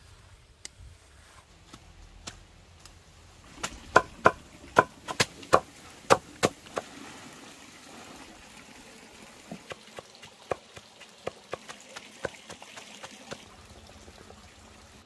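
A quick run of about eight sharp knocks, a few seconds long, then softer scattered clicks over a faint trickle of water.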